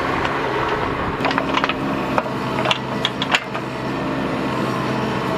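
Bobcat mini excavator's engine running steadily while it digs in clay soil, with a quick series of sharp clanks and knocks in the middle.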